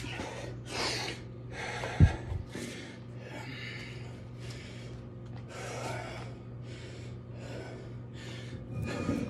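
A man breathing hard after an exhausting high-rep burpee and kettlebell workout, each breath audible at about one and a half a second as he catches his breath. A single thump comes about two seconds in.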